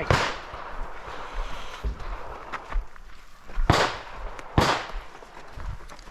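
Three gunshots: one right at the start, then two about a second apart past the middle. Each is a sharp crack with a short echo.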